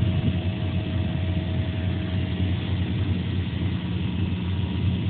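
Steady hum of a programmable cutting machine running, with a faint thin tone over it in the first couple of seconds.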